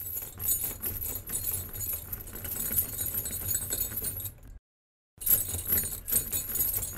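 Metal chains rattling and clinking in quick, irregular jangles over a low rumble. The sound cuts out completely for about half a second midway, then resumes.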